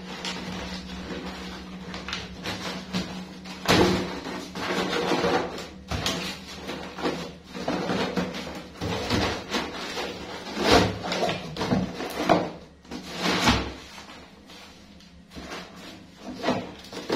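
Cardboard being handled, folded and pulled about inside a plastic crate: irregular rustling, crinkling and scraping, with a few sharper knocks against the crate. A steady low hum sits underneath.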